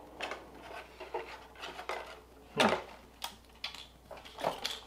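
Hard plastic clicks, taps and light rubbing from handling a DJI Mavic Pro drone, in irregular separate knocks with the loudest about two and a half seconds in.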